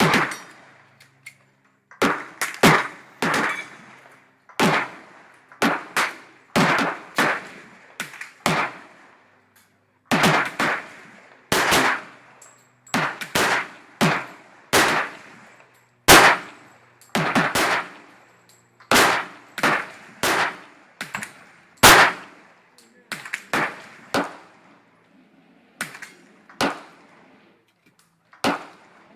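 Kimber 1911 .45 ACP pistol shots, about two dozen in uneven strings of single shots and quick pairs, each followed by a short echo.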